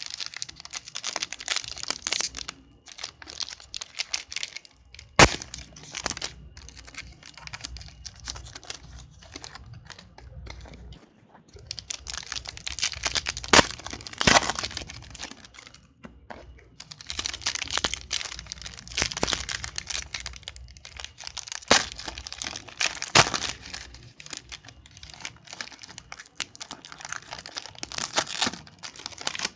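Foil trading-card pack wrappers crinkling and tearing as packs are ripped open and the cards pulled out, in repeated rustling spells with a few sharp snaps.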